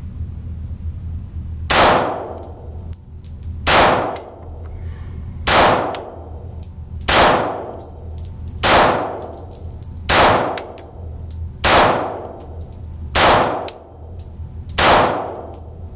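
Ruger MkIV 22/45 Lite .22 LR pistol firing nine shots at a steady, deliberate pace, about one every one and a half to two seconds. Each sharp crack rings off in the indoor range, over a steady low hum.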